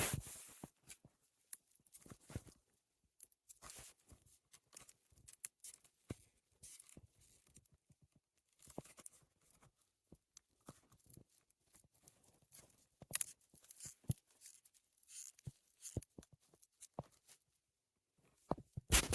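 Scattered faint clicks and short rustles, as of something being handled, with a cluster of louder clicks about two-thirds of the way through and another just at the end.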